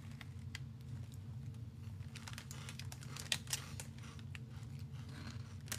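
Faint crinkling and scattered light clicks of a snack bag being handled as protein puffs are shaken out of it into a hand, the clicks clustering in the middle.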